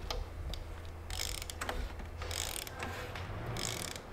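Honda K24 four-cylinder engine being turned over by hand with a breaker bar on the crankshaft pulley. Light mechanical clicking, with a rush of air about every second as each cylinder comes up on compression. The engine turns real smooth, a sign of a healthy motor.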